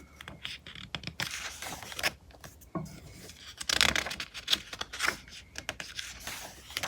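Magazine pages being turned and handled: a run of irregular paper rustles and scrapes, loudest about four seconds in.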